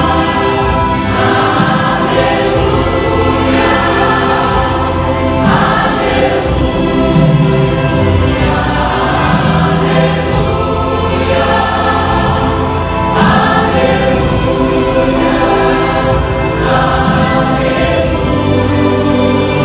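Gospel vocal group singing a worship song together in Portuguese, with instrumental accompaniment.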